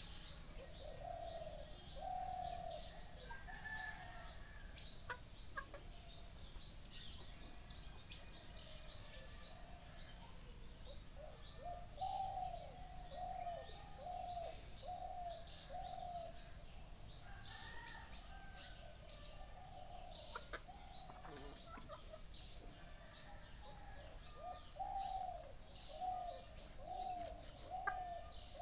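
Birds calling: short high chirps repeat several times a second throughout, over runs of lower, falling calls at about two a second. A steady high whine sits beneath, with a few faint clicks.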